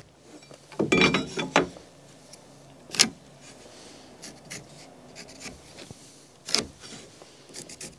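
Light handling sounds of marking stud layout on a wooden wall plate: pencil and speed square rubbing and scratching on the lumber. A brief rustle about a second in, and sharp clicks about three seconds in and again at six and a half.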